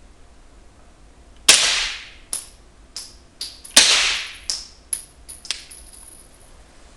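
Two suppressed shots about two seconds apart from a Heckler & Koch USP 9mm SD pistol with a Brügger & Thomet Impulse IIA suppressor, firing subsonic ammunition. Each is a short, quite quiet poof with no supersonic crack, echoing off the walls of an indoor range, followed by a few lighter clicks.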